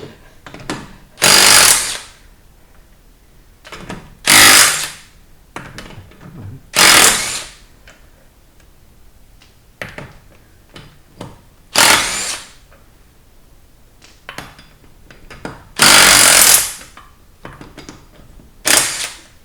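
Impact wrench hammering in six short bursts a few seconds apart, loosening the lug bolts on a wheel.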